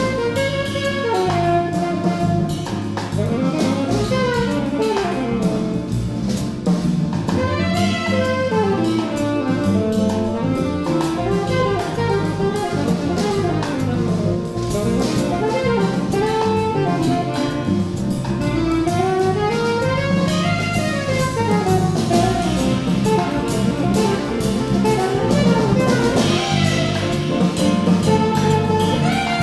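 Live jazz quartet: a saxophone plays fast runs that climb and fall over piano, upright bass and a drum kit with constant cymbal strokes.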